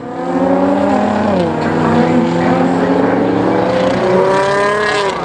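Several Nissan GT-R engines running as a line of cars drives past on the circuit, with the pitch stepping down about a second and a half in and again near the end.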